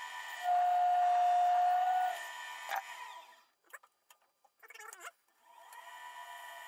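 Wood lathe turning a sycamore blank, the gouge cutting with a loud, steady, high whine. About three seconds in the lathe runs down to near silence, there are a few knocks as the tool rest is handled, and then the lathe starts up again, its steady whir building.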